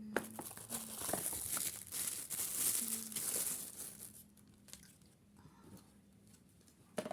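Plastic packaging crinkling and tearing as it is handled and pulled open. The crinkling is densest for the first four seconds, then thins to scattered crackles, with a sharp click near the end.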